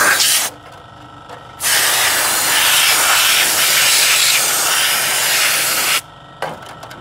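Air-powered spray gun hissing as it blasts a cleaning mist through a car's throttle body: a short burst that stops about half a second in, then a longer burst from about a second and a half in that cuts off suddenly near the end.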